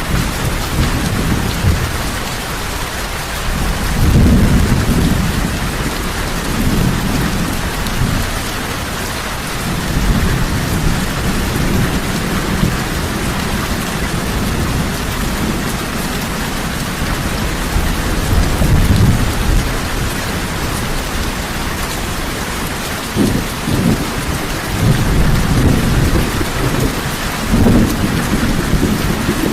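Heavy rain falling steadily, with low rolls of thunder rumbling through it, swelling several times.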